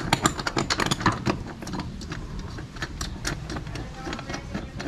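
Clicks and knocks of hands working at a motorcycle seat's mounting, most of them in the first second or so, over a steady low hum.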